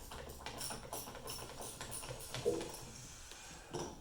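Small socket ratchet clicking in quick, even strokes as a bolt is backed out, with a dull knock about two and a half seconds in.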